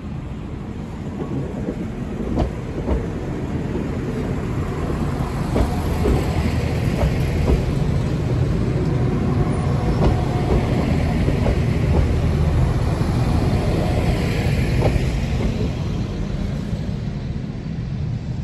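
Northern Ireland Railways diesel multiple unit running past on the platform line, its underfloor engine and wheels rumbling. The sound grows louder as the train comes alongside, with sharp clicks from the wheels over the rail joints, then fades as it moves away.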